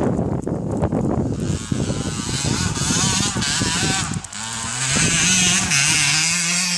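Kawasaki pit bike engine running as it is ridden on a dirt track, its pitch wavering up and down with the throttle, then holding a steadier note from about four seconds in.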